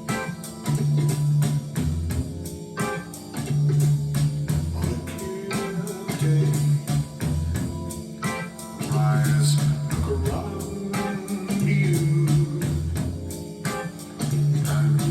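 Music with guitar, bass guitar and drums played through Falcon Acoustics Q7 loudspeakers and recorded by a microphone, with a bass figure repeating about every one and a half seconds under a steady drum beat.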